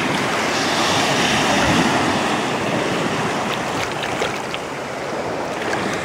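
Shallow sea water washing over a sandy shore: a steady rushing of small waves, a little louder for a few seconds near the start.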